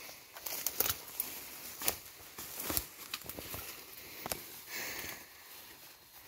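Footsteps along an overgrown forest trail: irregular crunches and crackles of dry leaves and twigs underfoot, with rustling of plants brushed in passing.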